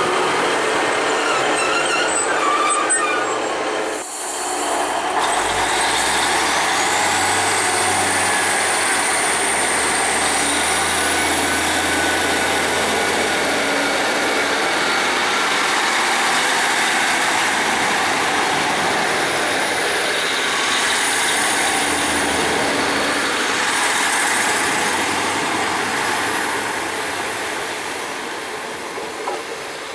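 Class 150 Sprinter diesel multiple unit pulling away from the platform close by: underfloor diesel engines under power, with a whine that rises in pitch a few seconds in and then holds steady. Wheels run on the rails as the coaches pass, and the sound fades near the end as the train draws away.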